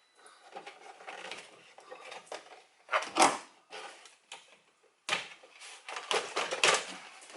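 Plastic center-console trim being pried and worked loose by hand: an irregular run of plastic clicks, creaks and rattles, loudest about three seconds in and again from about five seconds on.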